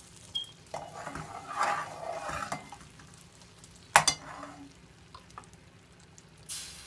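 Metal spoon stirring and scraping in an aluminium pot on a gas stove, with one sharp clink of the spoon against the pot about four seconds in. Near the end a hiss starts suddenly as orange liquid is poured into the hot pot.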